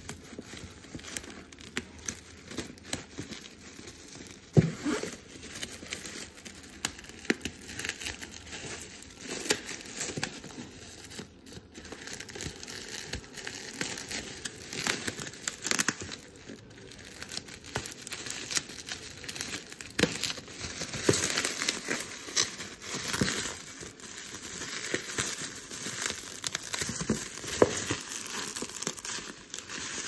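Bubble wrap around a parcel crinkling and crackling as it is handled and cut open with scissors. Irregular sharp snaps and rustles run throughout, with one stronger snap about four and a half seconds in.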